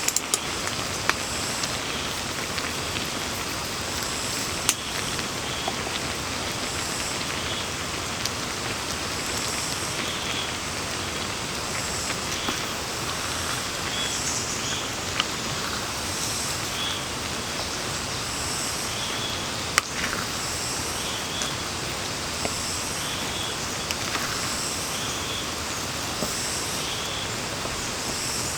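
Steady rain falling, an even hiss with a few scattered sharp drip taps.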